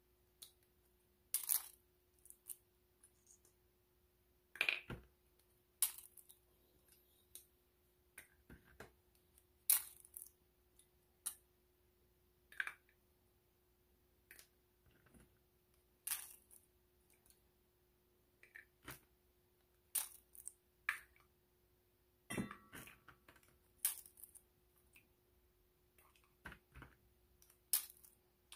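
Quail eggs being cracked open one after another over a stainless steel bowl: sharp, irregular clicks and clinks of thin shell against fingers and the bowl's rim, about one every second or two.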